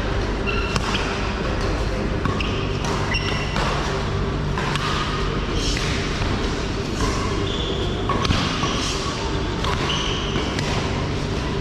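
Badminton play: repeated sharp racket strikes on the shuttlecock, with short high squeaks scattered between them, over a steady low hum.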